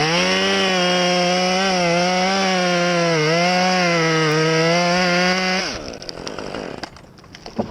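Chainsaw engine revved up to full throttle and held there with a brief dip about three seconds in, then let off so the pitch falls away near six seconds. Faint scattered crackling follows.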